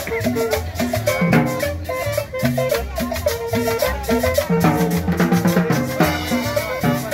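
Upbeat Latin dance music with a steady beat, shaker percussion, drums and a repeating bass line.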